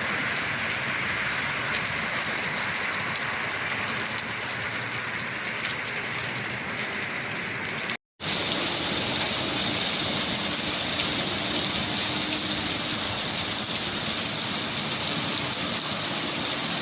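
Steady heavy rain falling and splashing. The sound cuts out abruptly about eight seconds in, then returns louder and hissier, with a faint steady hum underneath.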